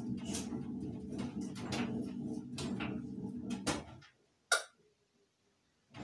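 Laundry rustling, with light knocks against the drum, as it is pulled by hand out of an Ardo front-loading washing machine, over a steady low hum. About four seconds in the sound drops out abruptly, leaving one short click.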